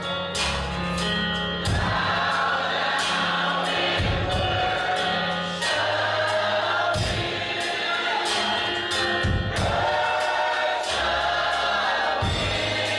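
Gospel choir singing with band accompaniment.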